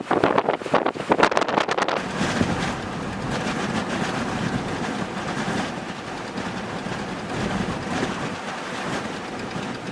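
Blizzard wind blowing across the microphone: choppy buffeting at first, settling after about two seconds into a steady rush.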